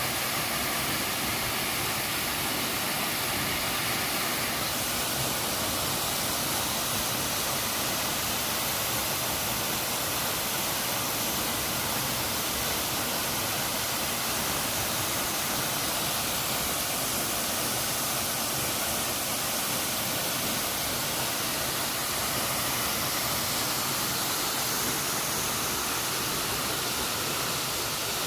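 Waterfall water rushing, a steady unbroken roar of falling water.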